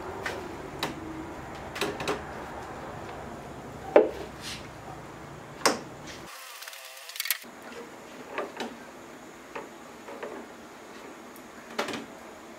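Irregular light wooden knocks and clicks from hands working along a wooden boat frame of stringers and ribs, the sharpest about four seconds in, with a brief hiss a little past halfway.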